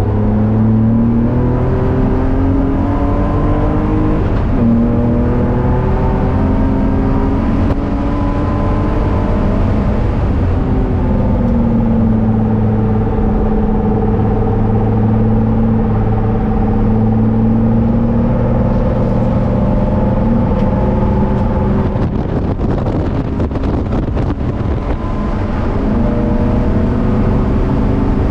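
BMW E30's engine heard from inside the cabin under hard track driving. It climbs in pitch to an upshift about four seconds in and pulls again. It eases off around ten seconds, holds a steady note for several seconds, then goes rough and noisy off the throttle before climbing again near the end.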